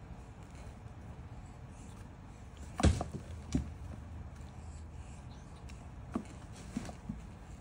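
Two kittens wrestling in a cardboard box, their scuffle making thumps and knocks against the box and the floor. A sharp thump about three seconds in is the loudest, with another soon after and a few lighter knocks near the end.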